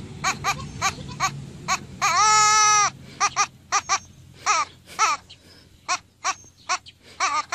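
Young goat kid bleating over and over in short, quick bleats, with one longer, louder bleat about two seconds in that holds for nearly a second.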